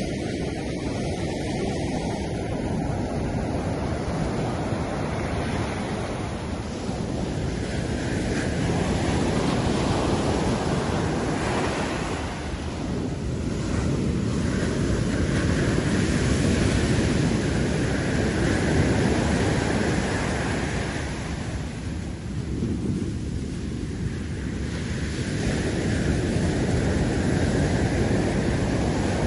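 Ocean surf breaking on a sandy beach: a continuous rush of waves that swells and eases in slow surges every several seconds.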